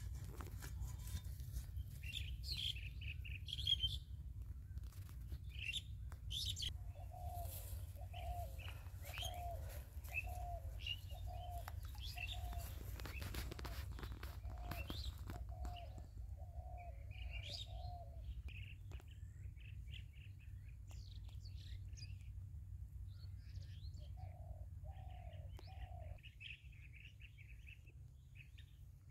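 Birds chirping and calling, with a run of evenly spaced lower calls, a little more than one a second, from about seven to eighteen seconds in and three more later on, over a steady low rumble.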